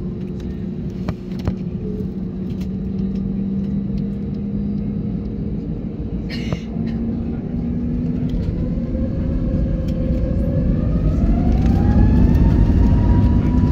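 Turbofan engines of an easyJet Airbus A320-family airliner heard from the cabin beside the wing. They hum steadily, then about eight seconds in spool up to takeoff thrust, with a rising whine that levels off and a growing rumble as the takeoff roll begins.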